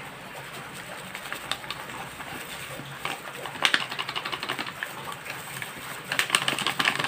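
Plastic food-prep gloves and a fruit pouch crinkling as pineapple tidbits are squeezed out of the pouch into a bowl, in two spells of rapid crackles, the second near the end.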